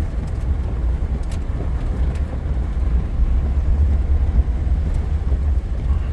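A heavy-duty 3500 truck weighed down by its beds, driving through soft, wet ground where it sinks in. Its engine and drive make a steady, loud low rumble.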